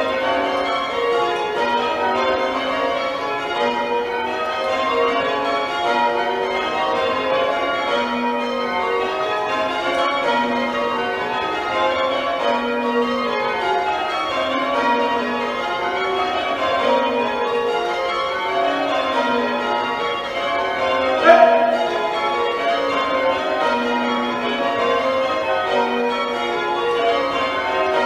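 Tower bells being change rung, heard from the ringing chamber below: a steady, even stream of bell strikes whose order shifts from row to row in weaving patterns. One brief sharp knock stands out about two-thirds of the way through.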